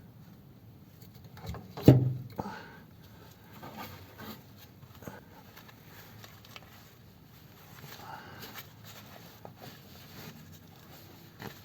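Scattered small clicks and scrapes of hand tools and steel locking wire being handled while wiring the bolts of a gearbox rear mount. One sharp knock comes about two seconds in.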